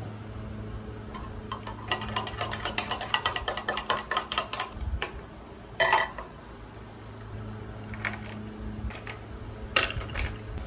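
Metal straw stirring coffee in a ceramic mug, a fast run of clinks for a couple of seconds. Then a single loud crack near the middle and a few scattered knocks later on as ice cubes are worked out of a plastic tray into the mug, over a steady low hum.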